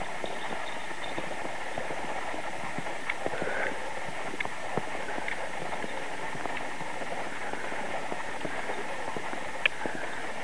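Footsteps crunching in fresh snow, a scatter of small irregular crunches with one sharper one near the end, over a steady background hiss.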